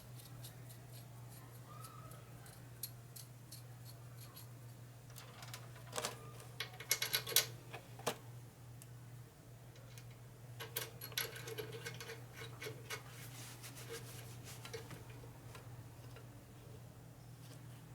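Small metal clicks and clinks of steel nuts and bolts being handled and threaded together by hand, with two busier bursts of clinking, over a steady low electrical hum.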